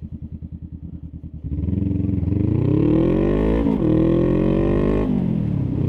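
Honda Rebel 500 parallel-twin motorcycle engine through a slip-on exhaust, first ticking over with an even pulse. About a second and a half in it opens up and pulls away, the pitch rising and dropping back twice as it shifts up through the gears.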